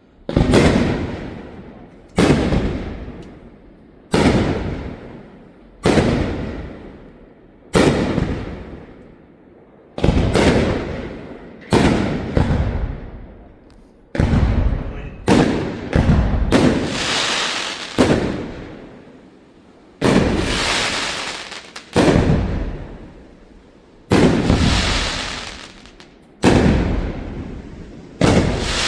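Fireworks display: aerial shells bursting one after another, about one every two seconds, each bang echoing away. Several later bursts trail off in a longer hissing crackle.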